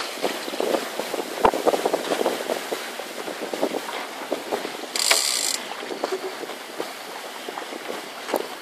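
Water rushing and slapping along the hull of a small wooden sailing boat under way, with many small irregular knocks and wind on the microphone. A short burst of hiss comes about five seconds in.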